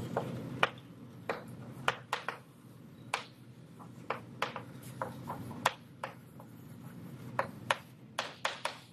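Writing on a lecture board: a string of irregular sharp taps and light scrapes from the writing tool as each stroke is made, over a faint room hum.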